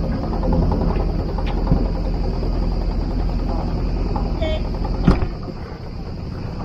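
Sailboat's outboard motor running steadily at low speed; about five seconds in there is a sharp clunk, and the low engine rumble drops away, as when the motor is throttled back or shifted out of gear.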